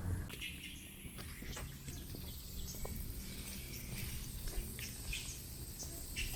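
Outdoor hillside ambience: a steady high-pitched insect drone with scattered short chirps and clicks over a low rumble.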